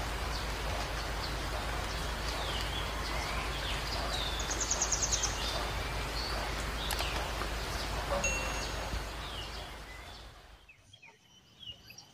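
Outdoor ambience of many birds chirping over a steady hiss, with one quick rattling trill about five seconds in. The sound fades down about ten seconds in, leaving faint chirps and a thin steady high buzz, like insects.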